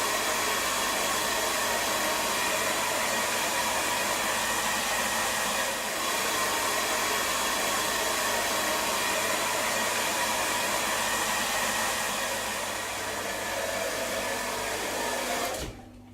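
Handheld hairdryer blowing steadily, drying a wet mountain bike; it cuts off suddenly near the end.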